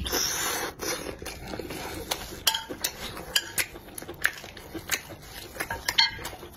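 Close-miked eating of spicy and sour chicken feet: wet chewing, sucking and lip-smacking on the sauce-coated foot, with many sharp clicks. A metal spoon scrapes and clinks on the ceramic plate as sauce is scooped.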